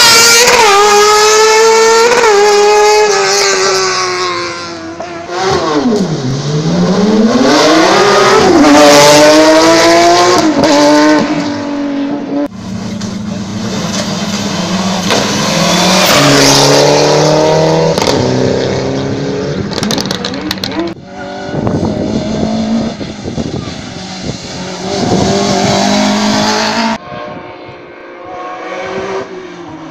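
Race cars' engines revving hard and changing gear as they pass, rising in pitch and dropping at each shift. It comes in several short clips joined by abrupt cuts.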